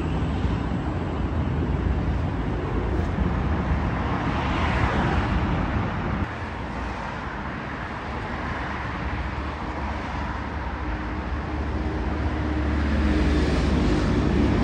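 City road traffic, a steady rush of passing vehicles with low engine rumble. Near the end a heavy engine grows louder as a vehicle draws close.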